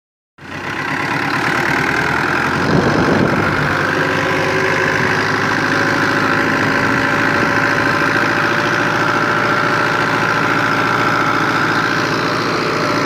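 1985 Fiat 640 tractor's four-cylinder diesel engine running steadily at an even pitch, pulling a heavy trolley loaded with sugarcane. It starts just after a brief silence.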